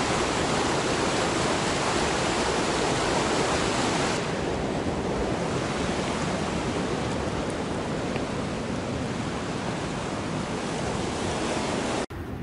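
Shallow river rapids running over boulders: a steady, even rush of water that drops a little in level about four seconds in and breaks off briefly near the end.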